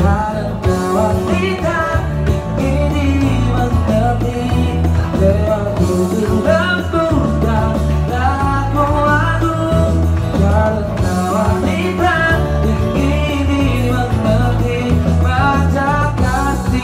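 Live band playing a song while a male singer sings into a microphone, over a steady bass line.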